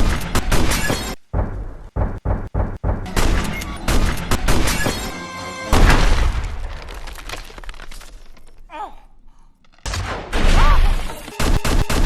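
Shotgun blasts and shattering glass, chopped into quick stuttering repeats, over music.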